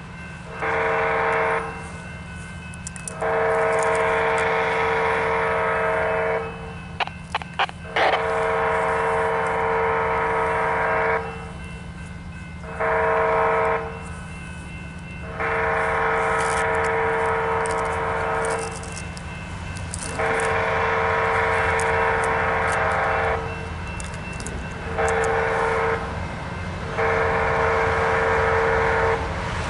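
Canadian Pacific diesel freight locomotive's air horn, a multi-note chord, sounding eight blasts as the train approaches. The last four go long, long, short, long: the grade-crossing signal. A steady low rumble runs underneath.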